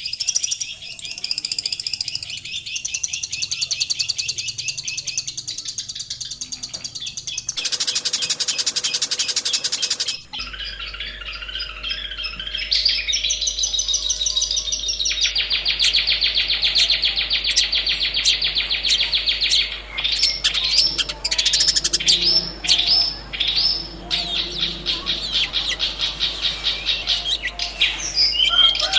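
Long-tailed shrike singing: a varied, chattering song of rapid high notes and trills. About a third of the way in there is a dense stretch of very fast pulsing notes, and later the song breaks into separate short calls, several a second.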